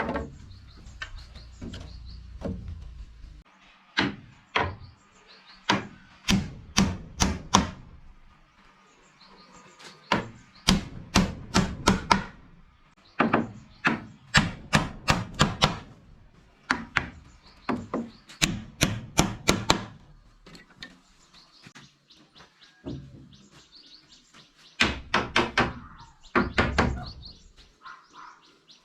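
Hammer striking wood in quick runs of three to six blows, with short pauses between the runs.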